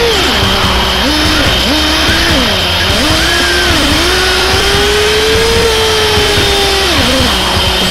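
The 3.48 cc SH PT21-P3 two-stroke nitro glow engine of a 1/8 RC buggy, heard from onboard, revving up and down with the throttle. The pitch drops sharply at the start, rises and falls several times, holds high for a few seconds in the middle, then falls off near the end.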